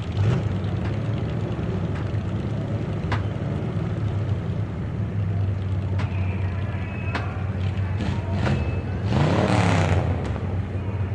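Motor-race ambience: car engines running steadily, with one car passing close and loud about nine seconds in, its engine note sweeping up and back down as it goes by.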